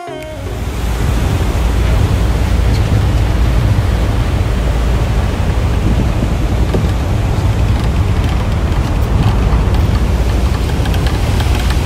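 Wind blowing across the phone's microphone on the open deck of a moving ferry: a loud, steady rush, heaviest in the low end.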